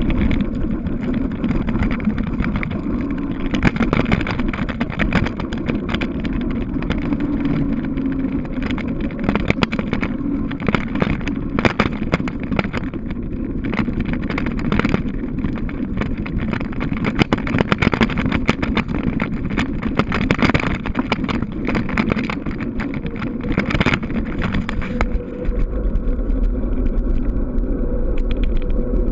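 Wind buffeting the microphone of a handlebar-mounted camera on a bicycle descending at speed, over the hum of the tyres on asphalt, with frequent sharp knocks and rattles from the bike over the rough, cracked road surface.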